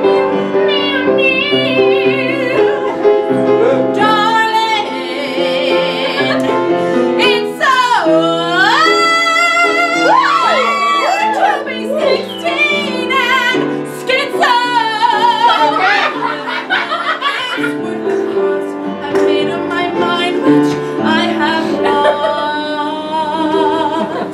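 A woman singing a musical-theatre song live, with vibrato on long held notes and swooping glides in pitch, over an instrumental accompaniment of sustained chords.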